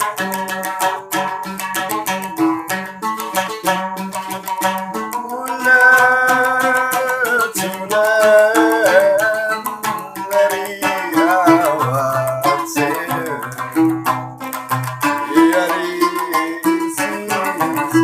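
A large Sasak gambus, a plucked lute, playing a quick melody of rapidly picked notes in traditional cilokaq style. From about a third of the way in to about two thirds, a voice sings long, wavering notes over it.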